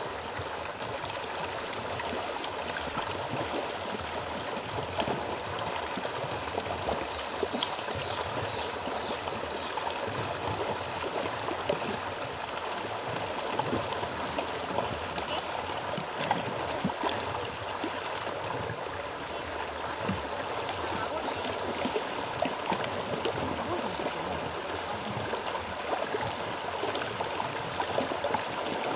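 Water running steadily down a narrow concrete-lined forest channel and spilling over a small step, a continuous rushing and gurgling.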